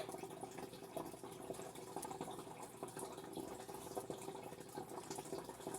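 Water in a turtle tank trickling and dripping steadily, with small irregular drips throughout.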